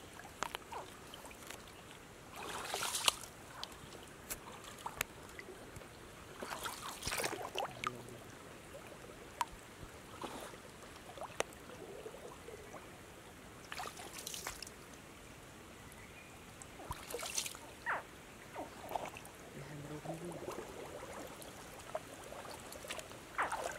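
Shallow forest stream trickling quietly, with four brief swishes spaced several seconds apart.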